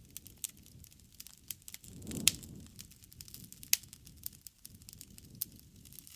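Wood campfire burning, crackling with many small sharp pops over a low rumble of flame, and two louder pops about two and a quarter and three and a half seconds in.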